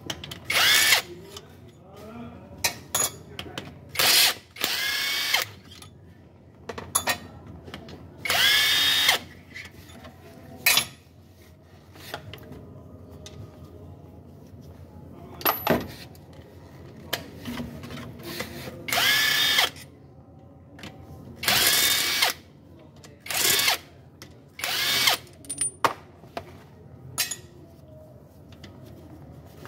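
Cordless power tool with a socket spinning out the bolts of a balancer shaft assembly, in repeated short bursts, each a quick rising whine as the motor spins up.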